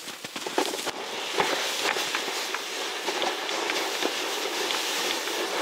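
A loaded ice-fishing sled dragged over snow-covered ice: a steady scraping hiss with irregular small knocks and crunches, and footsteps crunching in the snow.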